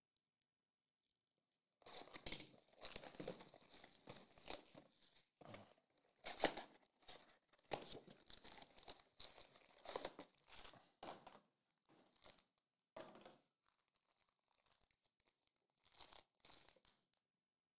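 Plastic wrap being torn off a trading-card box and crinkled, starting about two seconds in and running for some ten seconds, followed by shorter rustles and crinkles as the box's foil card packs are handled.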